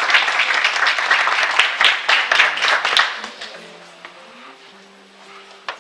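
Audience applauding with many hands clapping at once in a small room. The applause dies away about three seconds in.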